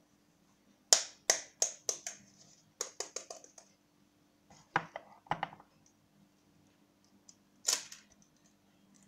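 Knife tapping an eggshell to crack it: a run of sharp taps about three a second, a quick cluster of lighter ones, a couple of spaced taps, and a louder crack near the end.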